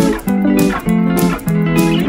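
Instrumental music of plucked strings, with notes that start sharply and fall away, in a steady repeating pulse.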